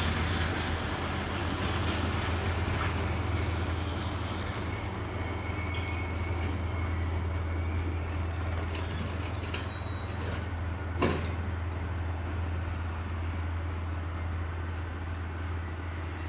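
Diesel freight train running, a steady low engine drone with wheel and wagon noise over it that thins out after a few seconds, and a single sharp knock about eleven seconds in.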